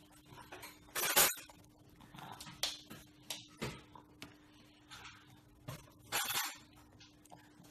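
A toddler's red plastic spoon scraping and tapping against a plastic plate in a handful of short scrapes and clicks, the loudest about a second in.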